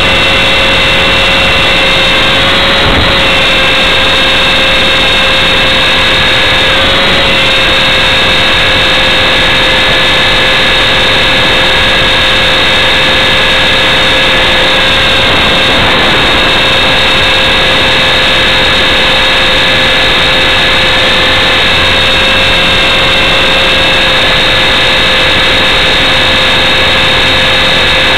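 Align T-Rex 450SE V2 electric RC helicopter, recorded from a camera mounted on it: the motor, gears and rotor run as a steady whine. The higher tones dip briefly a few times, about two, seven, sixteen and twenty-one seconds in, as the load on the rotor changes.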